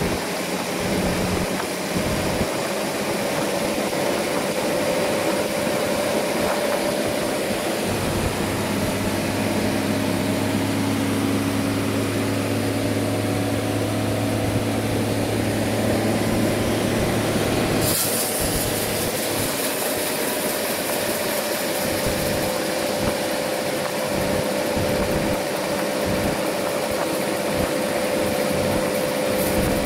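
Sawmill machinery running steadily: an engine drone with a constant hum. The sound changes abruptly partway through, when a high hiss joins in.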